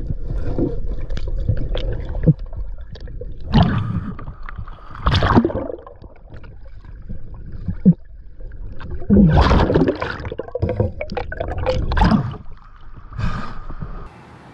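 Shallow river water splashing and sloshing in irregular bursts as someone wades and gropes around in it, with a few sharp knocks.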